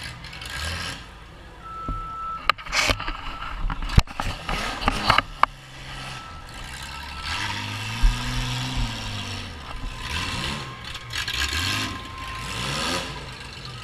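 Demolition derby car's engine revving up and falling back several times, heard from inside the stripped cabin, with a few sharp knocks and clanks in the first few seconds.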